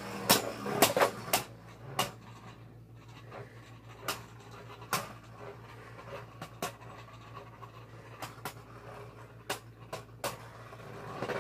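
Two Beyblade Burst spinning tops, Epic Evipero and Lost Luinor, spinning in a plastic stadium and clacking into each other in sharp hits: a quick flurry in the first second or so, then single hits every second or two.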